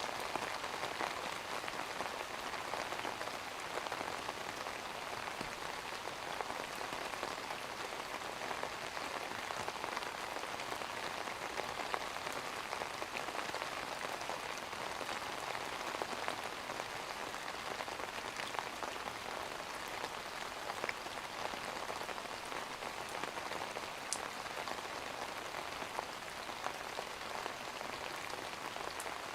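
Steady rain falling: an even, dense patter with a few sharper drop ticks scattered through it.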